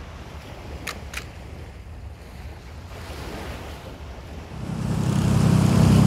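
Waves washing in low and even, then about four and a half seconds in a boat's engine rumbling loudly and steadily takes over.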